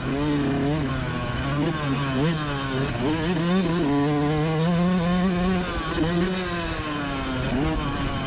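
Yamaha YZ125 two-stroke single-cylinder motocross engine running hard under throttle, its pitch climbing and dropping several times as the revs rise and fall.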